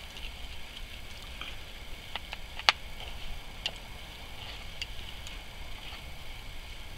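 Campfire crackling: scattered sharp pops and clicks at irregular times, one louder crack a little under three seconds in.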